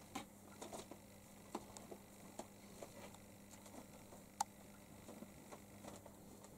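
Light, scattered taps and scratches of a kitten's paws and claws on the top of a wooden box, with one sharper click about four and a half seconds in.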